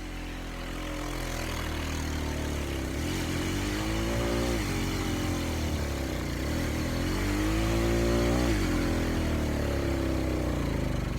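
Four-wheeler (ATV) engine running, its pitch rising and falling twice as the throttle is opened and eased off, about four and eight seconds in.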